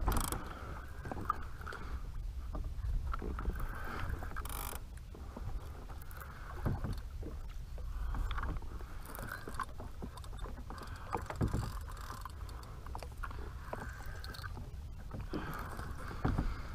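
Water lapping against an Old Town Sportsman kayak's plastic hull, with a steady low wind rumble on the microphone and scattered clicks and knocks of fishing gear on the boat.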